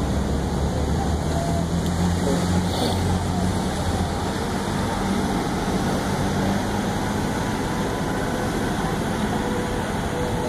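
Fire boat's engines running with a steady low hum under an even rushing noise as its water cannons spray.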